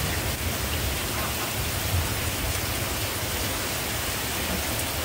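Heavy rain pouring down steadily in an even hiss, with an uneven low rumble underneath.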